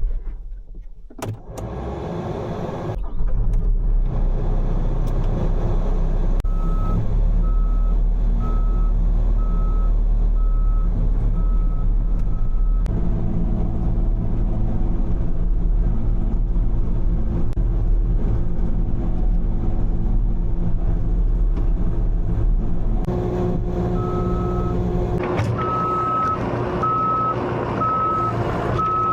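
Skid steer engine running steadily, getting louder about three seconds in, with its backup alarm beeping about once a second twice over, the sign that the machine is reversing.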